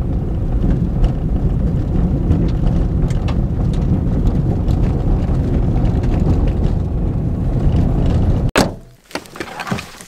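A car driving on a gravel road, heard from inside the cabin: a steady low rumble of engine and tyres with scattered ticks. It cuts off suddenly near the end, followed by a few knocks and rustles as a backpack is handled.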